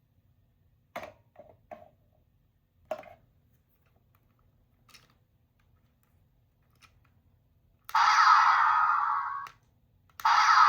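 A few small plastic clicks, then twice a loud electronic sound effect from a capsule toy's small speaker, each lasting about a second and a half and fading.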